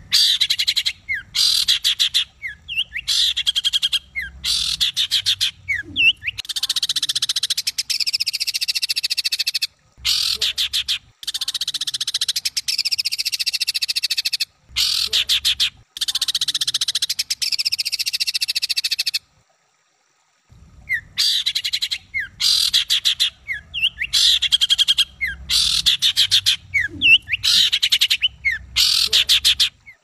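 Songbird singing harsh, rapid bursts of rattling, buzzing notes, the rough 'tembakan' phrases of an Indonesian masteran recording, with short upward whistles between bursts. It pauses for about a second about two thirds of the way through.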